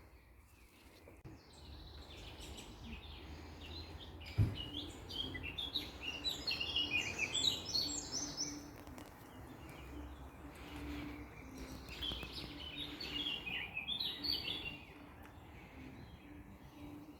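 Songbirds singing in two bouts of rapid, high chirping notes, over a low rumble. A single knock sounds about four seconds in, just before the first bout.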